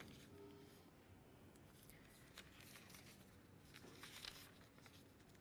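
Near silence: room tone with a few faint, brief rustles and ticks.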